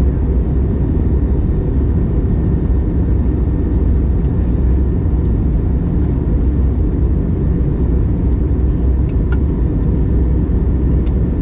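Steady cabin noise inside an Airbus A321neo airliner: a deep, even rumble of engines and airflow. A few faint clicks come near the end.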